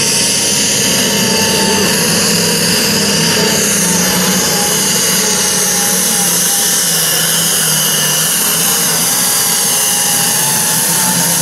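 International Harvester diesel pulling tractor running at full throttle under heavy load while dragging a weight-transfer sled, with a steady, high-revving engine note.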